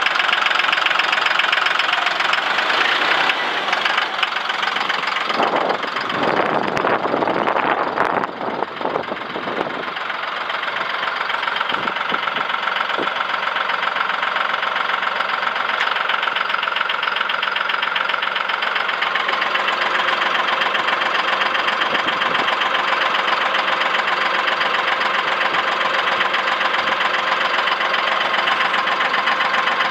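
2021 John Deere 5055E tractor's three-cylinder diesel engine idling steadily.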